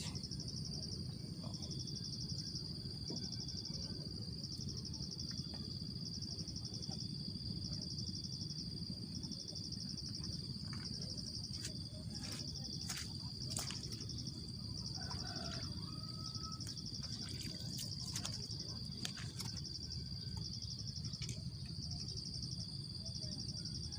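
Insects trilling steadily in a high, evenly pulsing drone over a low background rumble, with a few sharp clicks in the middle stretch.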